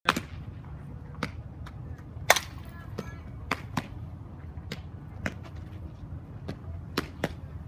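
Softball bat striking softballs in a batting drill: a series of sharp, short cracks, one every second or so, the loudest about two seconds in, with fainter knocks between them, over a low steady rumble.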